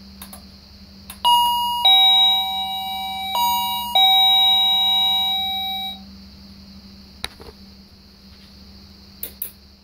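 Wireless door chime ringing a two-note ding-dong twice, high note then low, the notes ringing on and fading out about two seconds after the last one. It sounds like a standard chime box.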